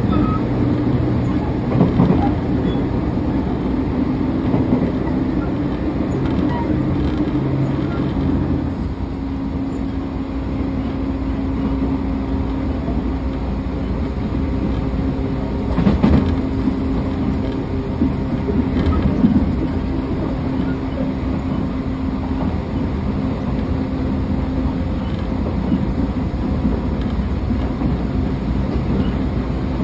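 Electric train running, heard from inside the carriage: the hum of its Toshiba permanent-magnet synchronous traction motors and inverter over steady wheel-and-rail noise. The motor tone changes about nine seconds in, and a few knocks come through, the loudest about two and sixteen seconds in.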